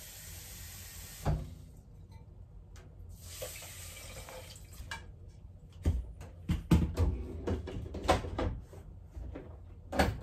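Kitchen tap running into a bowl at the sink, shut off with a knock about a second in and run again briefly a couple of seconds later. Then a run of knocks and clatters as cookware is handled on the counter.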